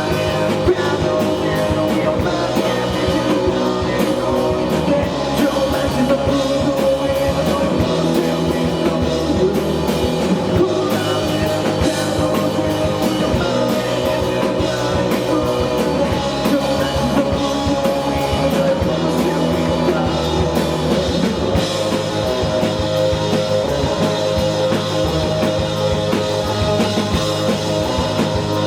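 Indie rock band playing live, with drum kit and sustained guitar tones running on without a break.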